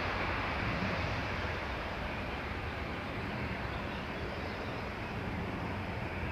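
Aircraft engines running: a steady, broad rumble that slowly fades.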